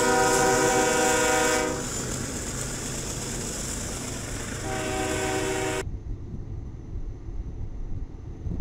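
Locomotive air horn on a passing freight train sounding a chord in two blasts, one about a second and a half long and a shorter one a little past the middle, over the rolling rumble and rattle of the freight cars. Near the middle the sound cuts abruptly to a quieter low rumble of a distant train.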